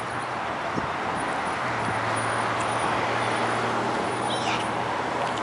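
Steady road traffic noise: an even, unbroken hiss of passing cars.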